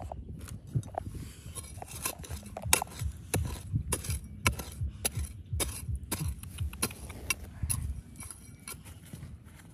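Irregular series of sharp clinks and knocks, about one or two a second, with a low rumble beneath, as of hard objects striking one another.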